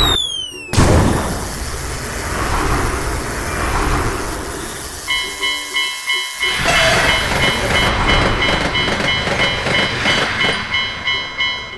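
A train runs with a steady rumble, after a short falling tone at the very start. About five seconds in, a Japanese railroad crossing's electronic warning bell starts its rapid, even kan-kan, about two and a half strikes a second, over the train noise.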